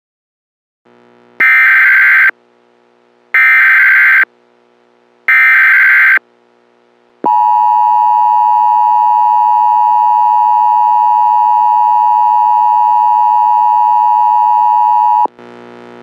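Emergency Alert System broadcast tones: three short warbling SAME header data bursts about two seconds apart, then the steady two-tone EAS attention signal held for about eight seconds, cutting off shortly before the end.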